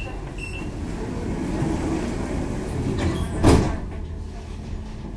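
A tram standing at a stop with a steady low hum. A short high beep comes just after the start, the end of a row of door-warning beeps, and one loud thud follows about three and a half seconds in.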